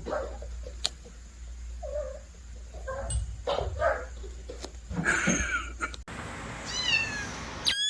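A domestic cat meowing several times in short calls.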